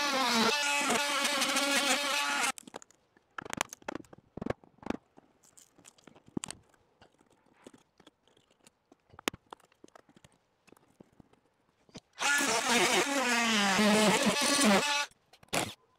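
Cordless oscillating multi-cutter buzzing as it cuts through cedar cladding, in two runs: one of about two and a half seconds at the start and one of about three seconds starting some twelve seconds in, then a short blip. In between come light clicks and knocks as the cut-out piece of cladding is worked loose by hand.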